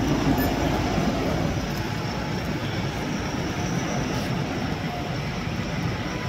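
Several heavy trucks, among them a sewer suction-cum-jetting tanker, driving slowly in a convoy: a steady engine drone mixed with road noise.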